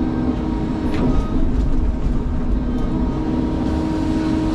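Sany excavator's diesel engine and hydraulics running steadily, a constant hum with a single knock about a second in.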